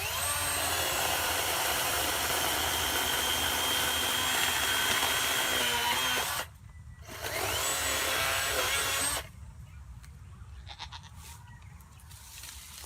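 Greenworks 40-volt cordless electric chainsaw running in two bursts, the first about six seconds and the second about two seconds after a short pause, its high motor whine rising as it spins up and falling away as it stops. Quieter afterwards, with a few clicks near the end.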